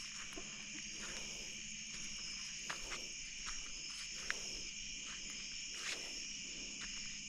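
Chorus of night insects trilling steadily at several high pitches, with a few faint crunches scattered through the middle.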